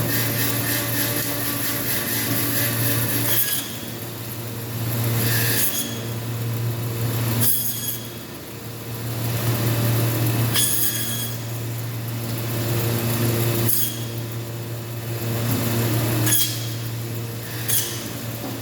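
Meat bandsaw running with a steady hum as it cuts a goat or mutton carcass through meat and bone, the sound rising and falling with each pass. Several sharp knocks come a few seconds apart.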